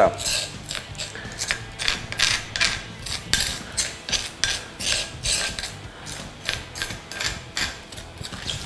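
A metal spoon scraping and stirring a gritty paste of coarse salt, spices and olive oil against the rough volcanic-stone bowl of a molcajete, in short irregular scrapes, two or three each second.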